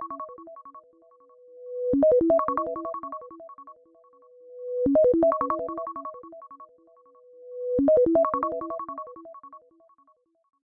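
An iOS 17 iPhone ringtone playing: a short phrase of quick notes that repeats about every three seconds, each repeat led in by a swelling tone. It stops shortly before the end.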